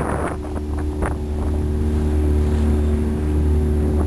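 Wind rumbling on the microphone aboard a sailboat under sail in a fresh breeze, with a steady engine-like hum setting in just after the start and a few short knocks in the first second and a half.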